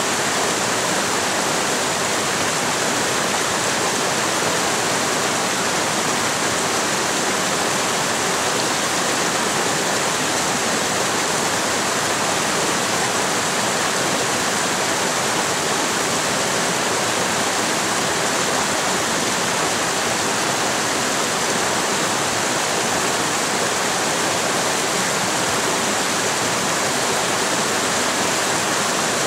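Shallow mountain creek rushing over and between boulders: a steady, unbroken rush of water.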